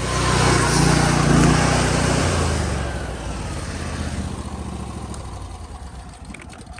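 A motor vehicle's engine going past close by: it grows loudest a second or two in, then fades away steadily as it moves off.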